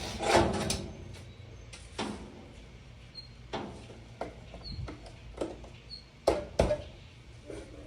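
Scattered knocks and clicks of hands handling the old stove and its power cord while plugging it in, about eight separate strokes, the two loudest close together near the end.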